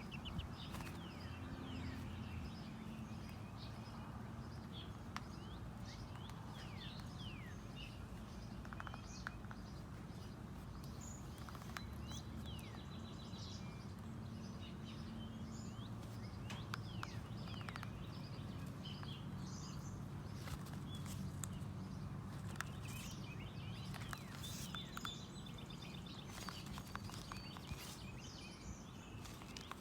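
A hen preening her feathers, her beak making quick, irregular little tapping clicks like a woodpecker's. Small birds chirp in the background over a steady low hum.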